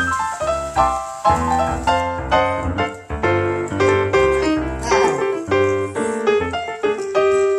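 Background piano music: a quick, busy run of notes over repeated low bass notes.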